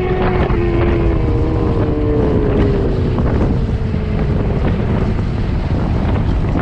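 Electric motor whine of an 8000 W Stealth Bomber e-bike, steady at first, then sliding slowly down in pitch and fading as the bike slows. Heavy wind rumble on the microphone throughout.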